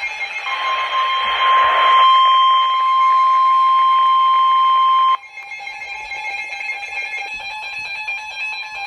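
NOAA Weather Radio alert: a steady, loud attention tone over static that cuts off abruptly about five seconds in, followed by a pulsing electronic alarm of several tones. It signals that a warning message is about to be broadcast.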